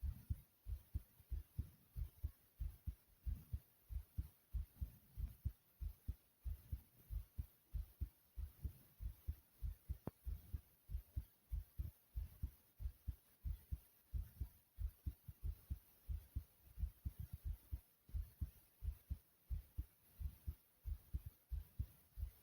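A human heartbeat: low double thumps (lub-dub) repeating in a steady rhythm.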